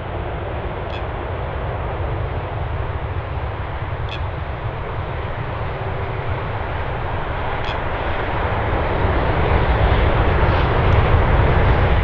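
Boeing 747 freighter landing: a dense, steady jet-engine noise with a deep rumble as it flares and touches down. The noise grows louder over the last few seconds as the aircraft rolls out, typical of reverse thrust being applied after touchdown.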